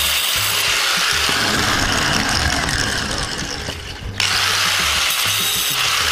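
Angle grinder with an abrasive cut-off disc cutting through a 3 mm steel wire rope, dying away about three seconds in.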